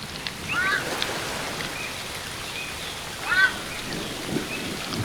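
Ibis giving two short calls, each rising and falling in pitch, about three seconds apart, over the steady rush of a waterfall.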